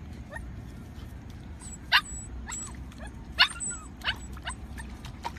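A dog yipping in short, sharp cries, two loud ones about two and three and a half seconds in and fainter ones in between, over steady low background noise.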